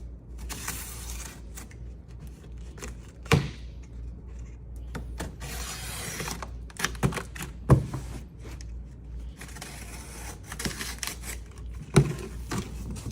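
A cardboard shipping box being opened and handled: stretches of cardboard scraping and rubbing, broken by three sharp knocks.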